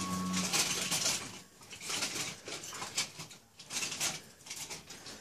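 Kitten licking a Staffordshire bull terrier's head: a run of short, soft scratchy strokes of its rough tongue on the dog's fur, several a second and irregular. Background music fades out about half a second in.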